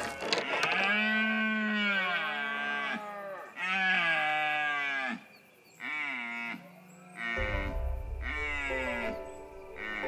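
Red deer stags bellowing in the rut: a series of long, drawn-out calls, several with the pitch falling away at the end, separated by short pauses. Low background music comes in about two-thirds of the way through.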